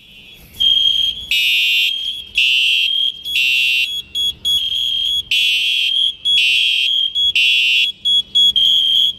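Fire alarm sounders going off in a repeating pattern: a high steady tone alternating with a harsher pulse about once a second, coming in about half a second in. It is the alarm of an FM200 gas-suppression system being test-triggered for discharge.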